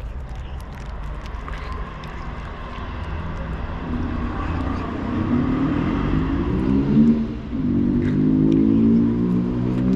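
A motor vehicle engine running close by over low traffic rumble, growing louder and shifting in pitch from about four seconds in.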